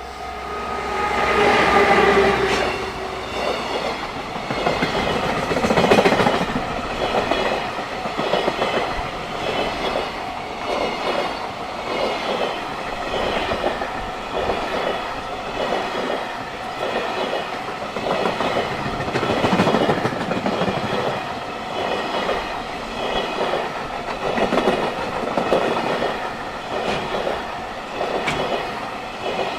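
Freight train passing: the locomotive goes by with a loud rush in the first few seconds. Then the wagons' wheels clatter over the rail joints in a steady rhythm.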